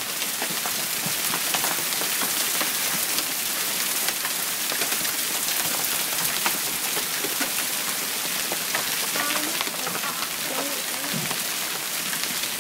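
A hailstorm with heavy rain: a dense steady hiss of rain, peppered with many sharp ticks of hailstones striking the ground and surfaces.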